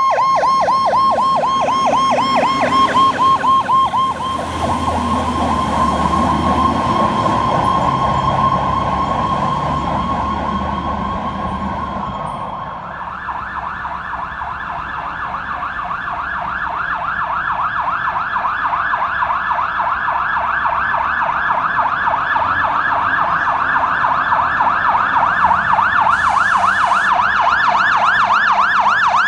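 Fire truck electronic sirens on a rapid yelp. About 13 seconds in, the yelp changes to a higher-pitched one that grows louder toward the end, with a low rumble under the first half.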